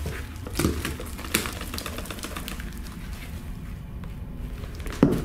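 Handling and rummaging through an old metal-framed handbag: a few sharp clicks and knocks with soft rustling in between, the loudest knock near the end.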